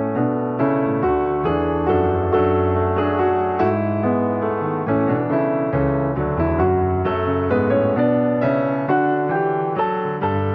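Piano music, a steady flow of notes struck several times a second over low sustained bass notes.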